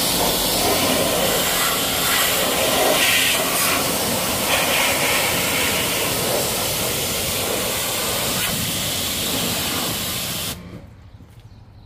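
High-pressure washer jet spraying water onto a motorcycle's engine and lower bodywork: a loud, steady hiss that cuts off suddenly near the end.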